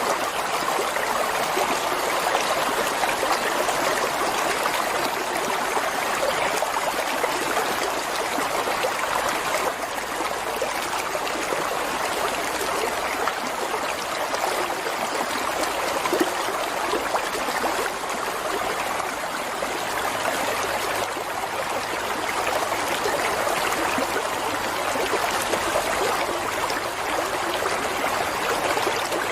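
Water flowing, a steady, unbroken rush.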